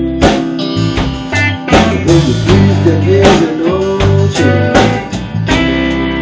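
Rock band playing: strummed acoustic guitar and electric guitar over drums keeping a steady beat, with a melody line bending in pitch from about halfway through.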